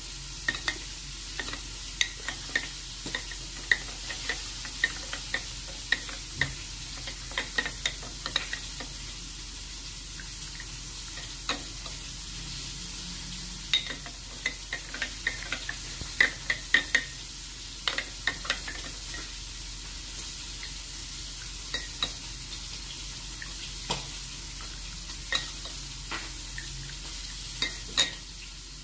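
A metal spoon stirring hot rice coffee in a glass tumbler, clinking irregularly against the glass in runs with short pauses, over a steady hiss.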